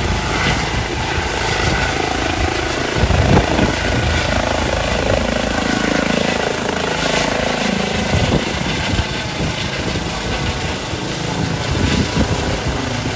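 Aircraft engine noise, loud and steady, with a faint high whine running through it.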